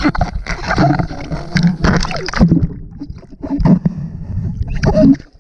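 Seawater sloshing and splashing around a camera that dips in and out of the surface, with gurgling as water washes over it, in irregular bursts.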